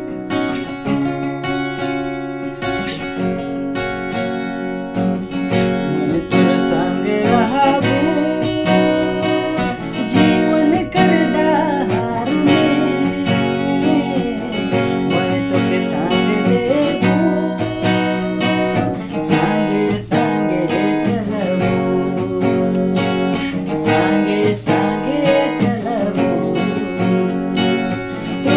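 A man singing to a strummed acoustic guitar. The guitar plays alone at first, and the voice comes in about six seconds in.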